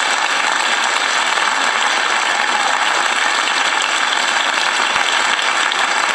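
Audience applauding, a dense, steady wash of many hands clapping at the close of a live song.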